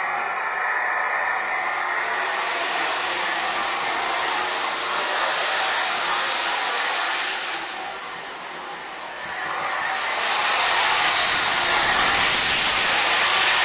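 Jet sound effect of a Lionel O-gauge NYC M-497 jet-powered Budd RDC model: a steady whooshing hiss that dips about eight seconds in and comes back louder about two seconds later.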